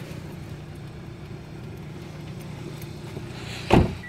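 A 2011 Hyundai Sonata's door is shut once with a single loud thud about three-quarters of the way through, over the steady low hum of the car idling.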